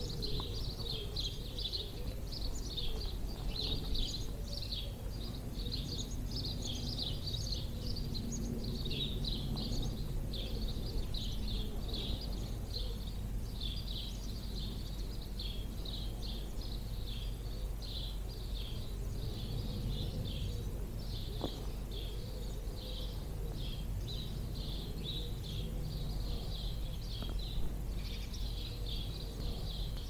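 Dawn chorus: many songbirds singing at once, a continuous tangle of high chirps and trills, over a steady low rumble of wind on the microphone.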